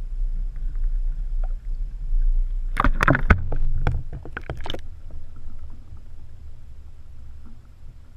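River water splashing as a fish is lowered into it by hand: a flurry of sharp splashes about three seconds in, lasting about two seconds. Afterwards the sound turns to a dull low rumble, heard with the microphone under the water.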